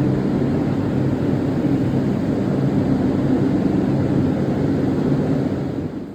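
Steady drone and hiss of spray-painting equipment running while primer is sprayed onto steel truck rims, with a low hum under the hiss; it drops away sharply near the end.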